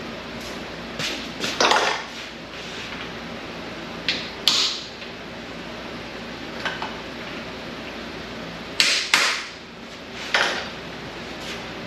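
Hand tools knocking and clinking against the exhaust manifold of a Chrysler 440 V8 while its bolts are worked loose: scattered sharp metal knocks, a close pair near the start, another about four and a half seconds in, a loud pair around nine seconds and one more soon after, over a steady background hum.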